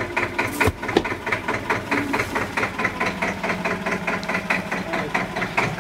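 Old Deutz tractor's diesel engine running at low revs with an even chugging beat while it drags a heavy stone well cover off the opening. A sharp knock and thud just under a second in, as the slab tips over.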